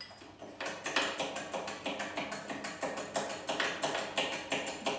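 Hydraulic bottle jack on a manual tube bender being pumped, its steel handle and linkage clicking and knocking at about three strokes a second, starting about half a second in. The jack is being checked for proper operation.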